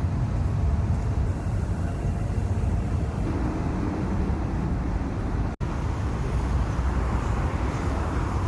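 Steady low rumbling outdoor ambient noise, broken by a brief dropout about five and a half seconds in where the recording cuts.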